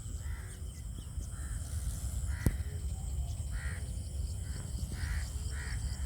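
Crows cawing: a steady run of short harsh caws, roughly one or two a second, with a single sharp click about two and a half seconds in.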